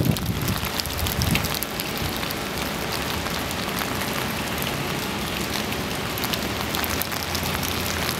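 Heavy rain falling steadily, with many sharp ticks of drops striking close by.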